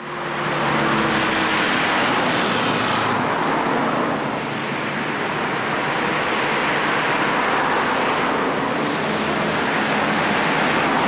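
Street traffic: cars driving past with engine hum and tyre noise, fading in at the start, with cars passing close about two to three seconds in and again near the end.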